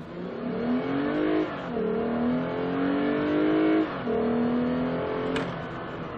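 Lexus IS 350 F Sport's 3.5-litre V6 at full-throttle acceleration from a launch, heard from the cabin: the engine note climbs in pitch, drops sharply at two upshifts about one and a half and four seconds in, climbs again, then falls away as the throttle lifts near the end.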